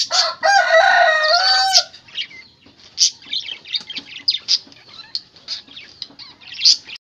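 A rooster crows once, about a second and a half long, followed by a string of short, high chirps and clicks. The sound cuts off suddenly near the end.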